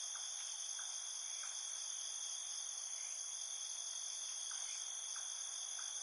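Steady insect chorus, trilling at several high pitches at once.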